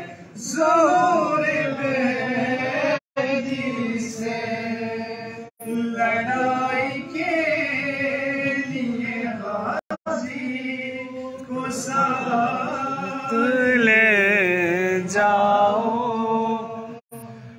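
A man chanting an unaccompanied devotional poem (manqabat) with long drawn-out, ornamented held notes that waver in pitch. The sound cuts out for an instant a few times.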